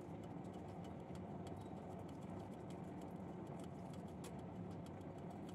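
Faint, small clicks and crackles of garlic cloves being peeled by hand, over a low steady hum.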